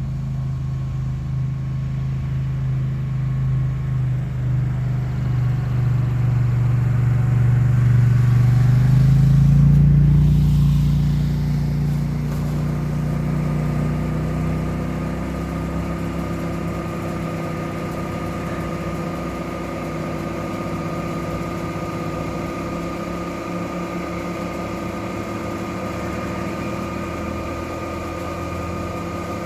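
An engine running steadily. It grows louder and rises in pitch to a peak about ten seconds in, then eases back to a steady, even hum.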